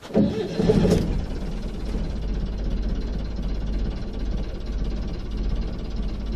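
Boat engine running steadily with an even low drone, louder and noisier during the first second.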